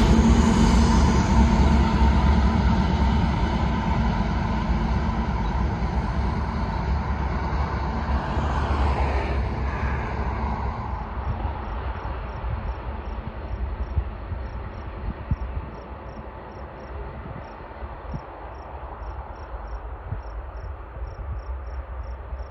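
Heavy freight train of loaded tank cars passing behind diesel locomotives, with a low engine drone and rumble of wheels on rail that fades steadily as the train moves away. Scattered sharp clicks come through near the end.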